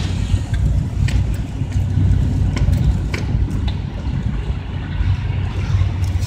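Off-road truck engine running at low speed under a steady low rumble, with a few sharp clicks and knocks through it.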